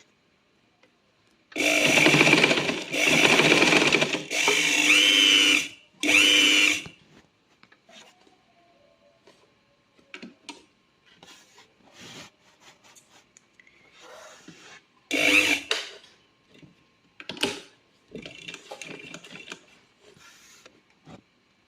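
Manual sewing machine fitted with an add-on electric motor and foot-pedal controller, running in four short bursts of a steady motor whine as the pedal is pressed, then two brief runs later on. Between the runs there are quiet handling sounds.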